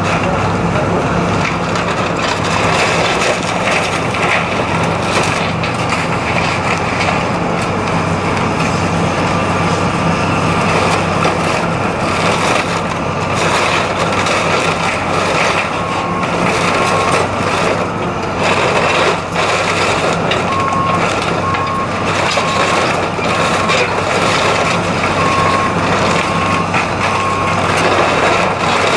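Heavy machinery engine running with crushing and cracking noise, and a backup alarm beeping a little past halfway through.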